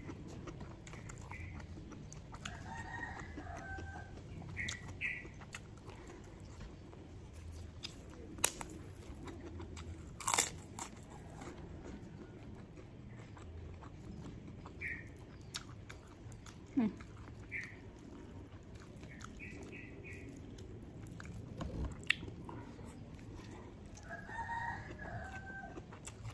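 Close-up eating by hand: chewing and crunching of rice and kerupuk crackers, with a few sharp crunches. Short animal calls sound in the background now and then, about six times.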